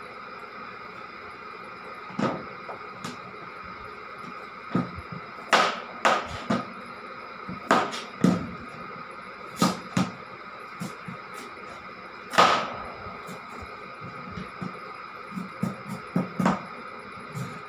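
Small kitchen knife cutting a raw carrot into pieces: irregular, sharp cuts and taps, a couple of dozen in all, the loudest about twelve seconds in, over a steady background hum.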